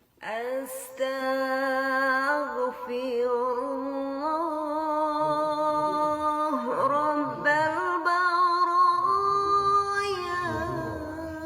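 A single voice chanting slowly in long held, wavering notes that step up and down in pitch, in the style of an Islamic devotional chant.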